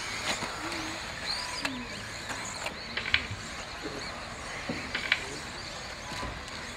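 1/10-scale electric off-road RC buggies racing on a dirt track: a steady whir of motors and drivetrains, with a few sharp clacks.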